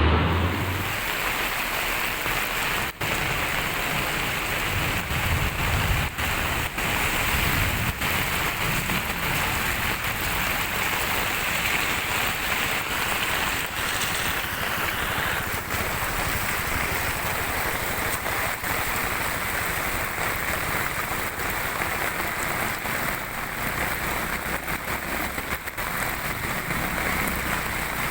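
Heavy rain pouring down, a steady loud hiss of falling water.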